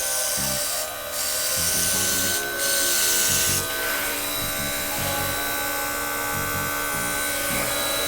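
Quevina cordless air compressor running with a steady whine while the airbrush spray gun it drives hisses. The hiss breaks off briefly about a second in and again at about two and a half seconds, and is softer in the second half.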